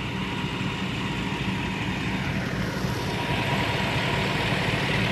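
Fire engine idling with a steady low hum, a rushing hiss growing louder from about halfway through.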